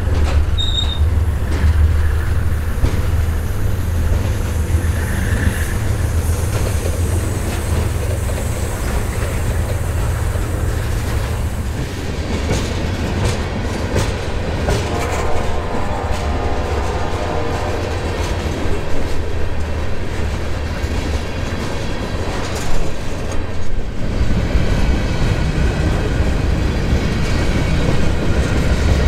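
Diesel locomotives of a freight train passing with a heavy low engine rumble that dies away after about ten seconds. Then the tank cars and covered hoppers roll by, their wheels clicking over the rail joints, with a wheel squeal about halfway through.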